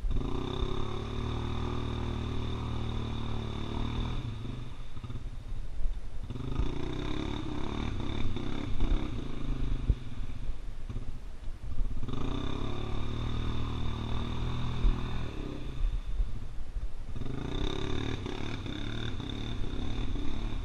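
Honda Rincon 680 ATV's single-cylinder engine revving hard in four long bursts of a few seconds each, easing off in between, as the quad is driven through deep swamp mud.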